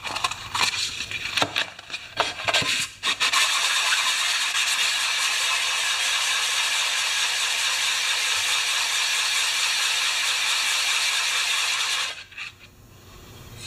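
Metal chainsaw fuel-tank half rubbed face down on sandpaper over a flat board: a few knocks and scrapes as it is set down, then a steady rasping of metal on abrasive for about nine seconds that stops suddenly near the end. The tank's mating face is being lapped flat to close a gap of about five thousandths.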